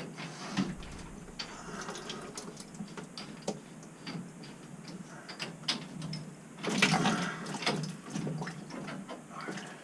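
Scattered metallic clicks, knocks and scrapes of plumbing tools and pipe fittings being handled, with a louder rattling scrape about seven seconds in.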